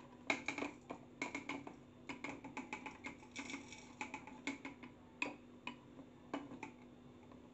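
Coarsely ground coffee being tipped from a blender's grinding cup into the mesh filter of a cold brew jug: irregular light clicks and taps, thinning out after about five seconds.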